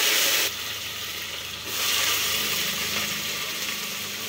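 Sliced onions sizzling in hot oil as they are tipped into a metal pan. The hiss is loudest at first, eases about half a second in, and swells again about two seconds in.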